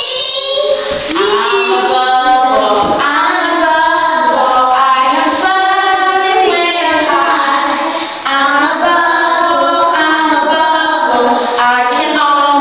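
A woman and a group of children singing together, with a short break about eight seconds in.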